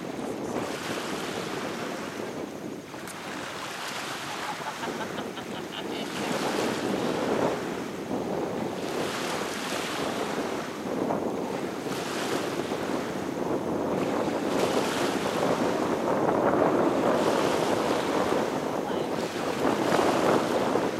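Small waves washing onto a shallow sandy shoreline, the wash swelling and easing every second or two, with wind noise on the microphone.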